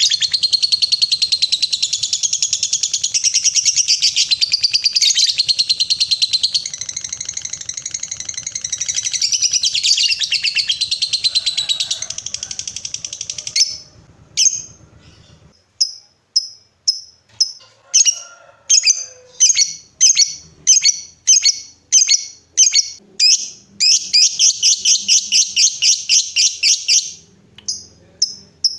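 Lovebird singing its long, rapid chattering trill, the 'ngekek panjang' song, for about fourteen seconds. Then a string of short, sharp chirps about one a second, with another fast trill burst near the end.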